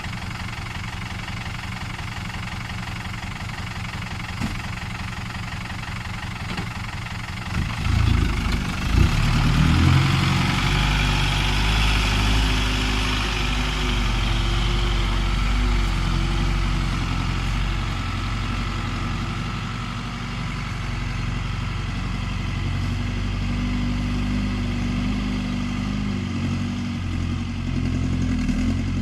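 Heavy diesel earthmoving machinery idling with an even low pulse, then about eight seconds in the engine revs up and keeps running loud and heavy under load, with a hiss higher up.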